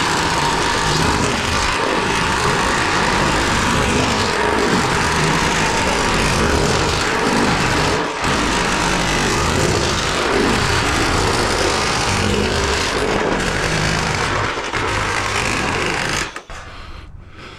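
A cordless power tool running almost without a break on metal roofing work, making a loud rattling noise that stops sharply near the end.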